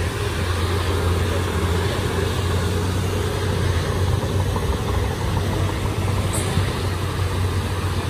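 Komatsu D31P bulldozer's diesel engine running steadily with a deep, even hum.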